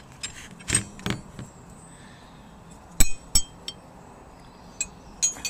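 Chrome-vanadium steel ring spanners clinking against one another as they are handled: a couple of light knocks, then two sharp metallic clinks with a short ring about three seconds in, and a few softer taps after.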